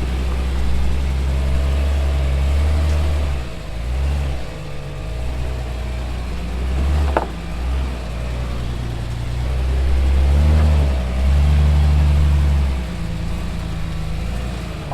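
Off-road 4x4's engine running low and heavy while rock crawling, the throttle swelling and easing in waves with the biggest pushes near the end. A single sharp knock, like a rock striking the vehicle, comes about seven seconds in.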